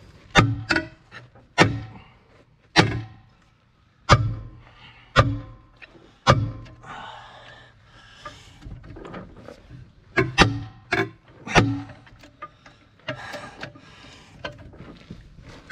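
Sledgehammer blows ringing on the steel rear axle of an International 1066 tractor, hammered while a breaker bar is pulled to tighten down a loose wheel. There are about ten sharp strikes in irregular bursts, some of them two or three in quick succession.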